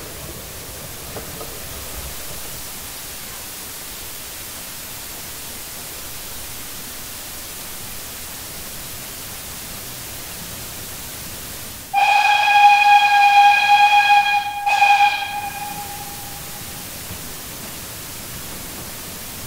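Steam whistle of a 1951 LOWA 50 PS narrow-gauge steam locomotive, sounded for departure from the station: a long, shrill blast about twelve seconds in, briefly broken near its end and fading out. Before it there is only a steady hiss.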